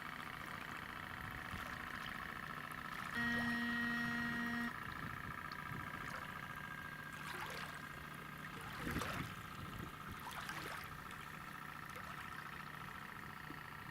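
RC model tugboat under way: a steady high motor whine, with one horn blast about three seconds in lasting about a second and a half, and a few brief swishes in the second half.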